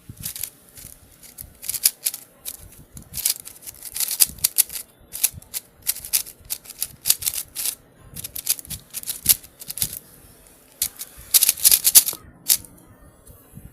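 FanXin Hudong 3x3 speed cube being turned fast in a speed-solve: rapid plastic clicking and clacking of the layers in bursts, with brief pauses between them.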